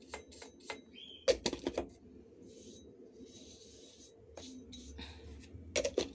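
Scattered clicks and knocks from a plastic scrub brush and metal stove burner caps being handled. The loudest knocks come about a second and a half in and again near the end, with a short stretch of soft scrubbing hiss in the middle.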